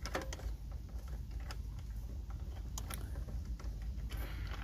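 Scattered light clicks and taps of bolts and parts being handled during reassembly of the truck's front end. A few come at irregular intervals, with a small cluster near the end, over a low steady rumble.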